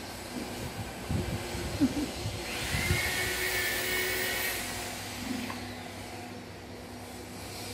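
Thumps and scuffling of two baby monkeys wrestling on a rug, in the first three seconds. A rushing noise with a faint whine swells and fades in the middle, over a steady low hum.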